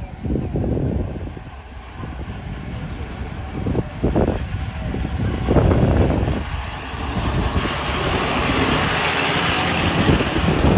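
An Isuzu crane truck's diesel engine running as the truck drives slowly toward the listener, getting louder over the first few seconds.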